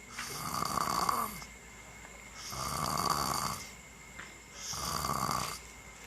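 Snoring in a steady rhythm: three snores, each about a second long, about two seconds apart.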